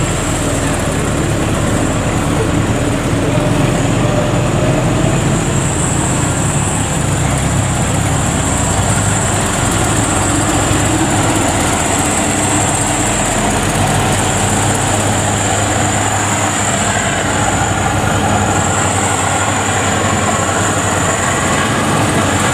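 FMWorld WD102PRO tracked rice combine harvester running steadily as it crawls through soft, muddy paddy ground. Its engine gives an even drone, with a high hiss that swells and fades above it.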